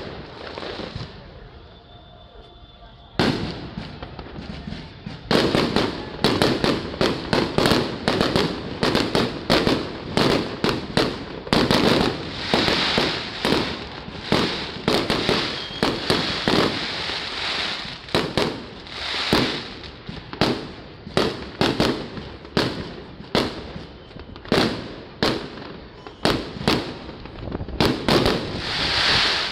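Aerial fireworks shells bursting overhead. One bang comes about three seconds in, then from about five seconds a rapid barrage of bangs follows, roughly two a second, with a crackling hiss between them.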